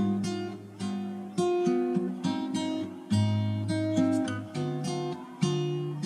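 Background music: acoustic guitar strumming chords, one strum about every second, each left to ring and fade.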